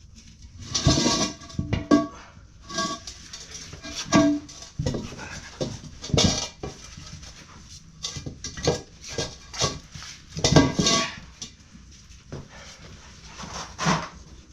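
Irregular metal clanks and clatter, several ringing briefly. These come from working a tire off a metal UTV wheel rim with tools and parts.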